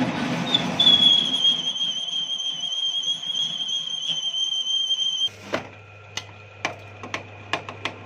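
A metal lathe cutting a steel propeller-shaft yoke, the tool squealing on the turning metal with one steady high-pitched tone over the machine's running noise. The squeal cuts off suddenly about five seconds in, leaving a low hum and a run of light clicks.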